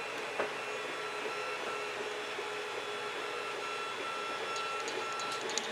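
3D printer running, its stepper motors giving a steady whine that comes in short, evenly repeated pulses as the print head shuttles back and forth, over a steady hiss. A few faint clicks near the end.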